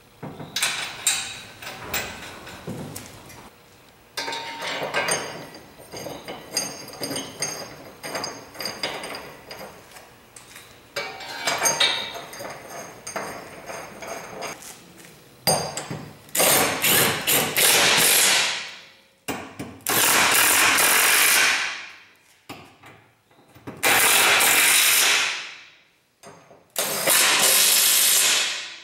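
Metal clinks and ratchet clicks as the rear subframe mounting bolts are started by hand, then a cordless impact wrench runs in four loud bursts of about two seconds each, driving the bolts home, each burst winding down as it stops.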